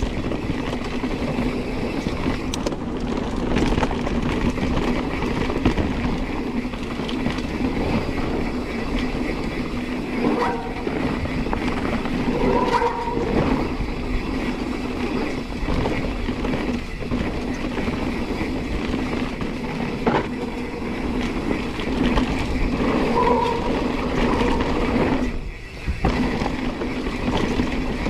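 Giant Reign full-suspension mountain bike ridden down dirt singletrack: a steady rushing noise of tyres on dirt, with rattles and knocks from the bike over rocks and roots. There is a brief drop in level near the end.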